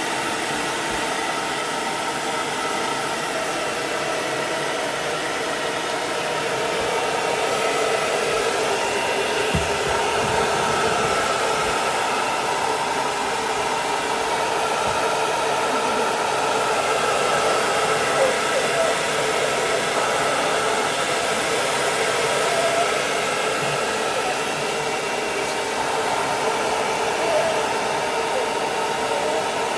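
Hair dryer blowing steadily while a miniature dachshund's coat is dried.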